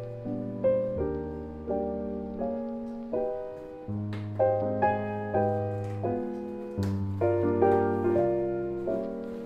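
Soft solo piano background music, unhurried notes struck every half second to a second, each ringing out and fading.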